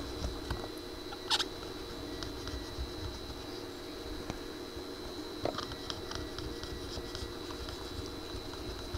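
Small clicks, taps and scrapes of a circuit board being handled and seated into a turntable chassis, over a steady background hum and a faint high whine.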